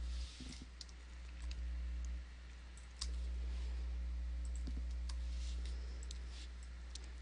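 Scattered faint clicks of a computer mouse over a steady low electrical hum.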